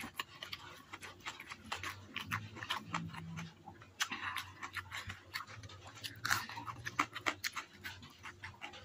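Close-up chewing of a hand-fed mouthful of stir-fried water spinach and rice: an irregular stream of short, wet mouth clicks.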